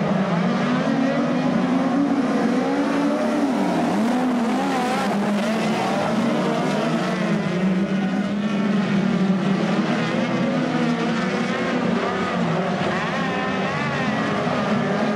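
A pack of midget speedcar engines running together at low to moderate revs, their pitch wavering up and down as the cars circle slowly on the dirt track.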